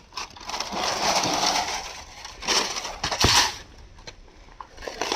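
Crunching and rasping from a cable being worked apart by hand: a long scraping stretch, then two shorter bursts with a sharp knock in between.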